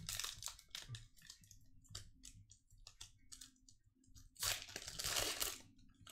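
Wrapper of a Panini Contenders Football trading-card pack crinkling in the hands and being torn open, with a longer, louder rip about four and a half seconds in.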